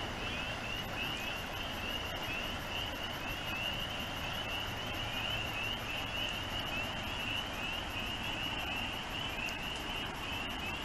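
Chorus of spring peepers, many short rising peeps overlapping without a break.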